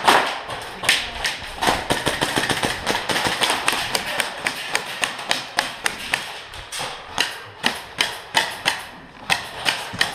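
Airsoft replica guns firing: a dense run of sharp cracks, settling in the second half into single shots about two a second.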